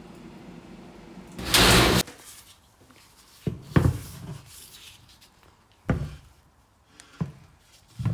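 A loud half-second burst of rushing noise, then a series of short sharp knocks and thuds spread over the next few seconds: hard objects being handled and set down.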